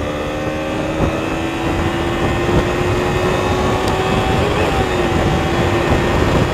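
Kawasaki Ninja 300's parallel-twin engine pulling steadily on the road, its note rising slowly and easing off a little about two-thirds of the way through, under heavy wind rush on the microphone.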